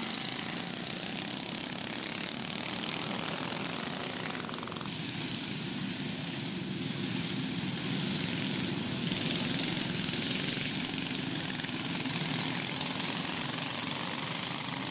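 Several go-kart engines buzzing steadily as a pack of karts races around a dirt oval. The sound changes abruptly about five seconds in.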